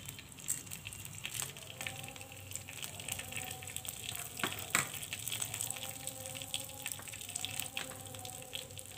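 Whole cumin seeds sizzling in hot olive oil in a frying pan alongside bay leaves and dried red chillies: a steady fizz with scattered small crackles and a few louder pops.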